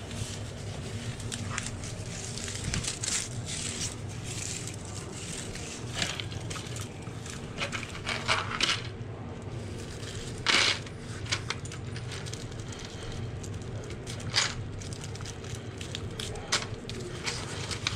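Loose steel nails being scraped up off a concrete floor by hand, clinking and rattling against the floor and each other in irregular clicks, the sharpest a little past halfway.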